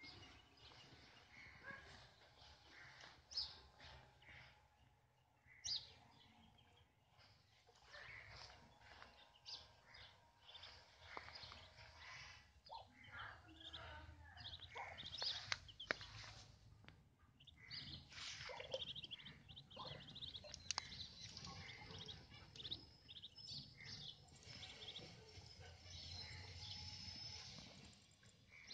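Muscovy ducklings peeping faintly: many short, high chirps scattered throughout.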